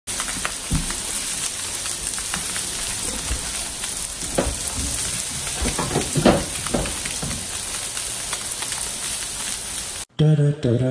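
Seasoned salmon fillets sizzling in oil on a hot stovetop griddle: a steady frying hiss with scattered small pops. It cuts off suddenly near the end, and music begins.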